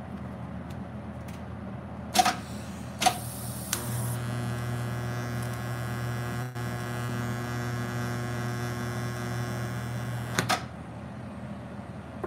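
TIG welding arc from a National DK 150 welder. Two sharp crackles come about two and three seconds in, then a steady electrical buzz with an even pitched hum holds for about seven seconds and cuts off with a click near the end. A fainter machine hum runs under it all.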